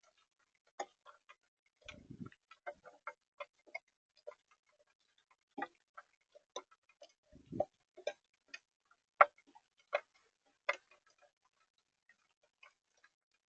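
Irregular sharp ticks and taps on a bird feeder, some in quick clusters, with two short low thumps about 2 and 7.5 seconds in.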